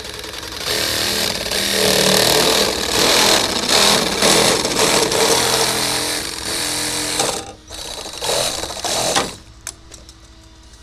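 Milwaukee Hackzall cordless reciprocating saw cutting through the yellow plastic guard tube of a PTO shaft. It runs steadily for about six seconds, then in a few short bursts before stopping near the end.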